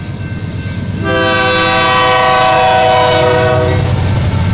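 BNSF diesel freight locomotive's air horn sounding one long chord of several notes, starting about a second in and lasting nearly three seconds, as it approaches the road crossing. Under it, the low rumble of the locomotive's engine and wheels grows louder as the lead unit passes close by.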